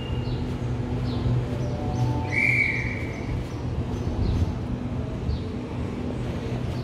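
Steady low electric hum of a Sydney Trains B-set (Waratah Series 2) double-deck electric train standing at the platform, with a single high tone about two seconds in that lasts about a second.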